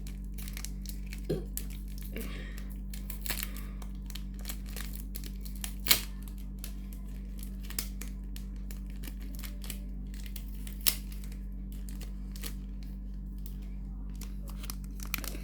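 Packaging being torn and crinkled by hand as a parcel of old coins is unwrapped, with scattered sharp clicks and rustles, the loudest about six and eleven seconds in, over a steady low hum.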